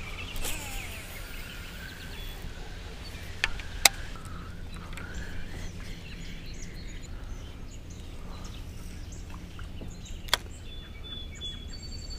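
Outdoor ambience on open water: a steady low rumble with faint bird chirps, broken by a few sharp clicks, the loudest about four seconds in and another about ten seconds in.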